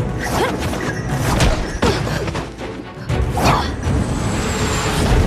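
Dramatic fight-scene soundtrack: music layered with combat sound effects, several sudden impact hits and whooshes, and a heavy low rumble that swells over the last couple of seconds.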